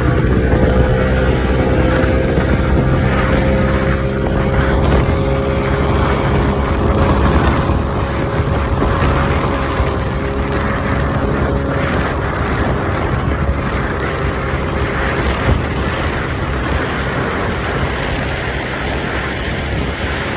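Motorboat engine running steadily under way, with a rush of wind and water. The engine's tone holds even for about the first twelve seconds, then sinks into the rush.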